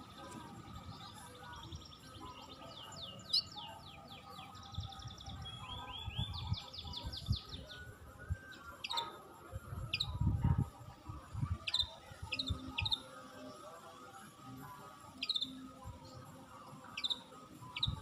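Wild songbirds calling: rapid trilled runs of high notes in the first half, then single sharp high chirps that drop in pitch, about one a second. A short low rumble on the microphone comes near the middle.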